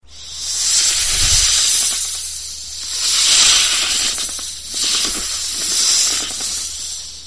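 Snake hissing: a series of about four long, loud hisses, each swelling and fading.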